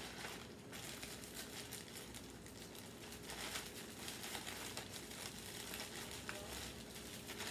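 Plastic bag crinkling faintly as crushed cookies are shaken and squeezed out of it into a glass bowl.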